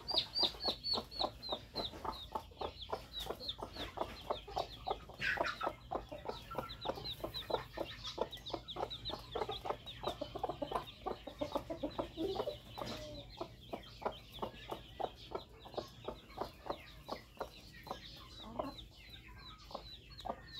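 Dong Tao chickens clucking in a quick, steady run, with short high peeps throughout and one louder falling call about five seconds in.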